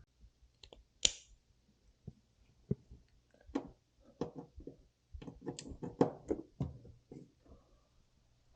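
Scattered clicks and clinks of metal hand tools being handled, with one sharp click about a second in and a busier run of knocks and clinks in the second half.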